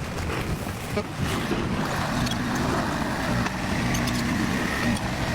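Diesel engine of heavy construction machinery running steadily, with a few short knocks and clanks.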